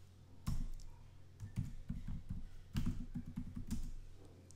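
Computer keyboard typing: a single keystroke, then two quick runs of keystrokes with a short pause between them.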